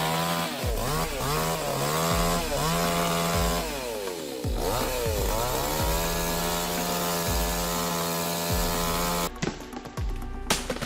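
Chainsaw engine running at high speed, its pitch dipping and recovering several times as the chain bites into the wood. It cuts off abruptly near the end, followed by a few sharp knocks.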